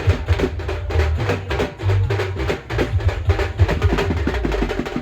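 Loud dance music with a heavy bass line and dense, fast drum hits.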